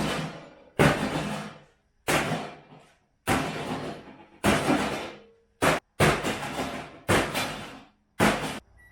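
A 4-pound hammer smashing into a microwave oven: about nine heavy blows roughly a second apart, each a sudden loud crash that rings out and dies away before the next.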